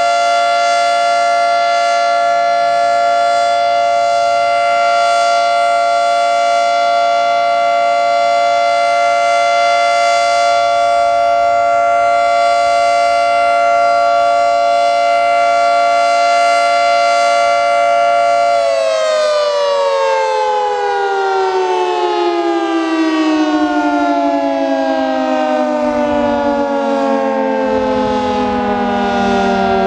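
Federal Signal 3T22A three-tone electromechanical siren sounding its steady Alert signal, a loud, rich chord held at constant pitch. About two-thirds of the way through the power cuts and the chord slides steadily down in pitch as the rotor winds down at the end of the one-minute cycle. The siren is running healthy.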